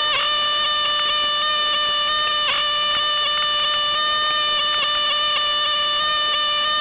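Soundtrack sped up twenty times into a steady buzzing drone with a fixed pitch and many overtones. It dips briefly just after the start and again about two and a half seconds in.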